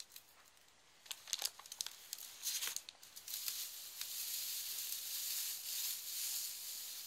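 A hand rummaging through the straw packing of a wicker hamper: scattered crackles and rustles, turning into a steady rustling from about three seconds in.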